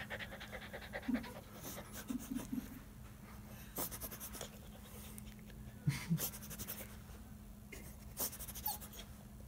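A dog panting softly, with faint rustling and a few small knocks from being handled, over a steady low hum.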